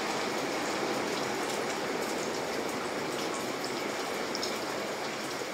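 Steady splashing hiss of free-flowing hot-spring water running into an open-air bath and spilling over its edge.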